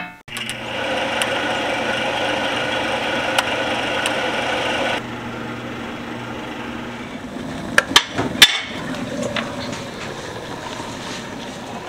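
Pit Boss pellet grill running with a steady motor hum, which cuts off abruptly about five seconds in. Then a quieter steady background follows, with a few sharp knocks around eight seconds.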